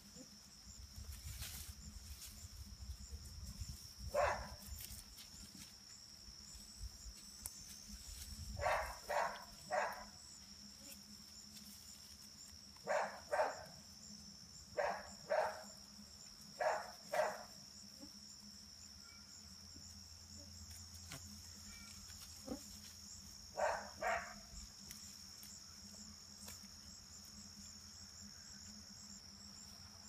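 Insects trilling steadily and high in the background, with a dog barking in short bursts of two or three several times, loudest in the middle of the stretch.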